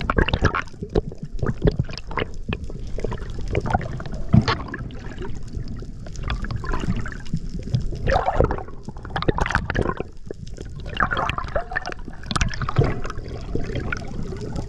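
Underwater water noise around a spearfisher's camera: irregular bubbling, gurgling and swishing as the diver moves through the water.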